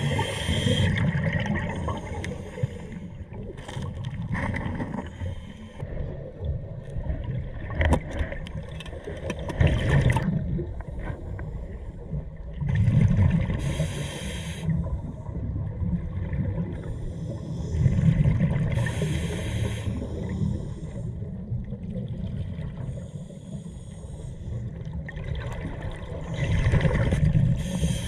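Scuba diver breathing through a regulator underwater, heard as a breath every four or five seconds: a hiss and a gurgling rush of exhaled bubbles over a steady underwater rumble.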